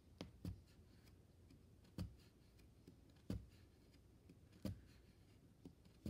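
Oxford punch needle driving wool yarn through monk's cloth: faint, short thumps, one roughly every second and a half, as stitches are punched along a row.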